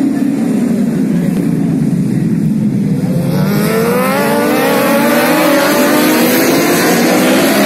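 A pack of superbike racing motorcycles going past, many engines at once: the engine note drops for the first three seconds, then from about three seconds in many engines rev up together, rising in pitch and getting louder as they accelerate by.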